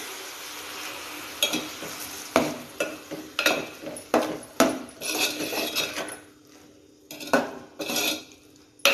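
Water poured into a hot metal pot of brinjal curry, hissing at first, then a metal ladle stirring, knocking and scraping against the pot's sides many times.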